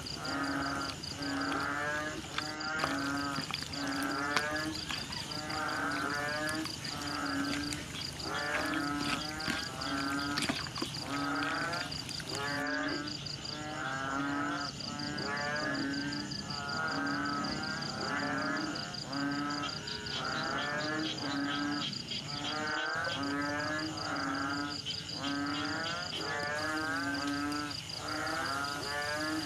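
Background music: a looped tune with a wavering lead melody over a low note that repeats about once a second.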